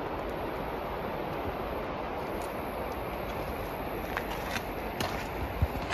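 Steady rushing of a nearby river, an even hiss-like flow with no change, with a few light clicks near the end.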